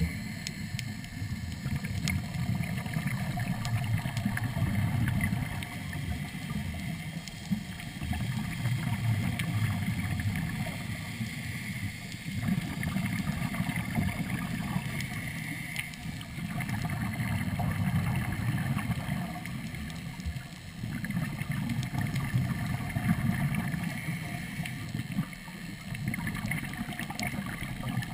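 Diver breathing underwater through a surface-supplied third-lung (hookah) regulator: a low bubbling rumble of exhaled bubbles that swells and fades every four or five seconds.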